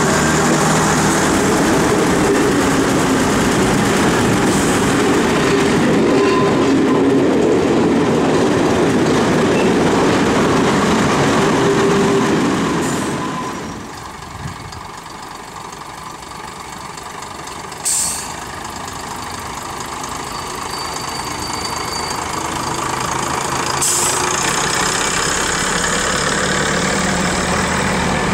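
Underfloor diesel engines of a first-generation diesel multiple unit running under power, heard from aboard the moving train. After a break partway through, a quieter engine sound builds slowly as the unit approaches, with one sharp click in between.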